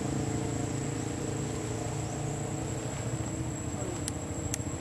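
A steady low motor hum with a thin constant high whine over it, and two sharp clicks near the end.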